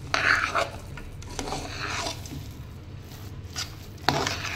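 Metal spoon stirring and scraping thick cooked kodo millet pongal in an aluminium pressure cooker pot: a few uneven scraping strokes, with a sharper knock against the pot near the end.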